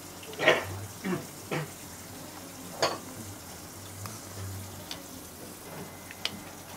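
A spoon scraping and knocking against a rice bowl as food is scooped up: a few short clinks and scrapes, the loudest about half a second in, over a steady background hiss.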